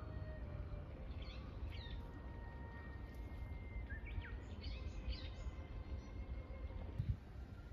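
Small birds chirping in short calls, a couple about two seconds in and a quick cluster around four to five seconds, over a steady low outdoor rumble.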